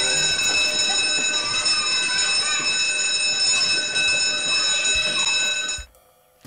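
Electric bell ringing continuously for about six seconds, a steady metallic ring over a rattling buzz, then cutting off sharply near the end.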